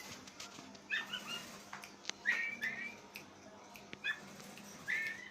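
Caged Oriental magpie-robin (kacer) giving an unusual, strange-sounding voice: short whistled calls in a few brief groups, with faint clicks between them.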